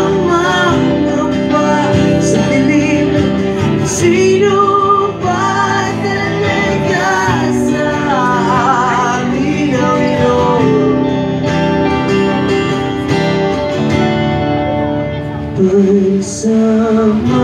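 Live rock band performing a song: a male lead voice sings over acoustic guitar, electric guitar, bass and drums.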